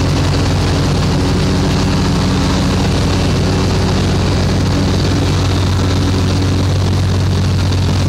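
Spartan SRT XD zero-turn mower's 33 hp Vanguard V-twin engine running steadily while mowing.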